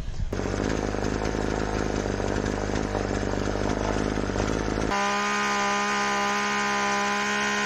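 Two-stroke chainsaw engine running steadily. About five seconds in it switches to a cleaner, steady high-revving note. Near the end the pitch falls as the revs drop.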